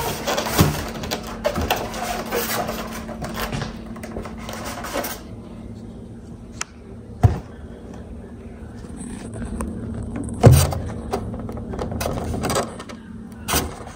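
Handling noise of a phone being set up and propped on a makeshift stand: rubbing and scraping at first, then a few separate knocks and thumps, the loudest about ten and a half seconds in, over a low steady hum.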